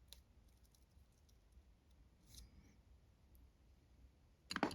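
Mostly near silence, broken by a few faint clicks of cut stones being handled, then a louder cluster of clicks and knocks near the end.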